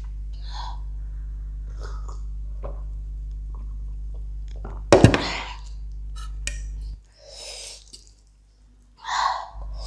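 Close-miked eating and drinking sounds: small wet mouth clicks, and sips from a glass of cola. One loud sudden sound comes about five seconds in, over a steady low hum that drops out for about two and a half seconds near the end.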